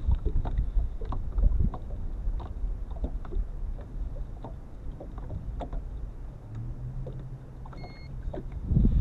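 Boat ambience of wind buffeting the microphone and water against the hull, with scattered light knocks and clicks. A low steady hum comes in past the middle. A short electronic beep sounds about eight seconds in, and a louder thump comes just before the end.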